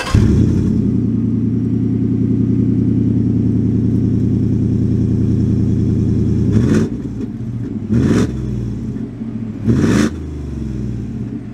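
Ford F-150 V8 just after start-up, running at a steady high idle. In the second half it is revved three times in short blips, and the idle sits lower between the revs.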